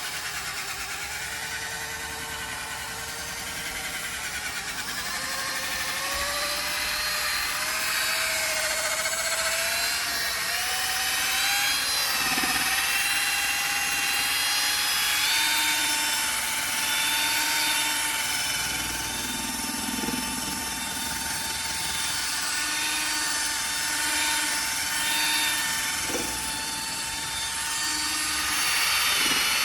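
Cordless drill spinning a polishing pad to buff polish into a plastic headlight lens. The motor whine climbs steadily in pitch over the first half as the drill speeds up, then holds at an even speed, with a few brief low knocks.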